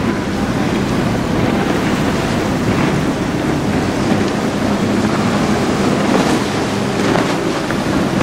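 Wind buffeting the microphone over the wash of waves, with the steady low drone of a boat's engines running underneath.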